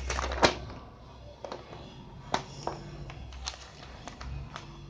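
Sheets of paper being handled and leafed through, a string of short crackles and rustles, the loudest about half a second in, over a low room hum.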